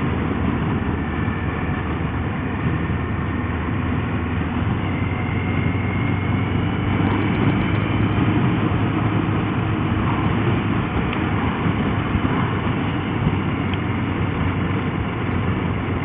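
Motorcycle engine running at a steady cruise, mixed with wind and road noise, with no change in pace.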